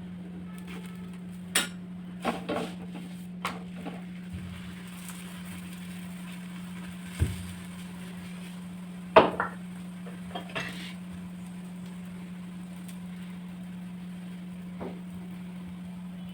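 Metal kitchen utensils clinking and knocking against cookware in scattered, irregular knocks, the loudest about nine seconds in, over a steady low hum.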